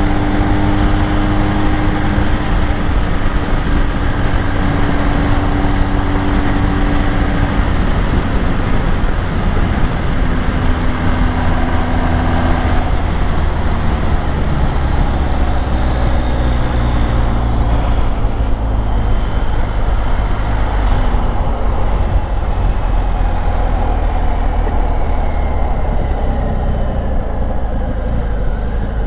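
BMW R 1250 GS Adventure's boxer-twin engine running at highway speed, mixed with heavy wind and road noise. Its note is steady at first, then shifts and falls in pitch through the second half.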